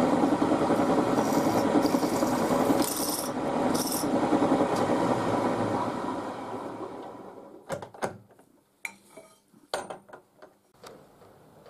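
Drilling machine running as a twist drill bores an 8 mm hole through square steel tube held in a machine vise. The machine winds down about six seconds in, and a few sharp metal clanks and knocks follow as the tube is taken out of the vise.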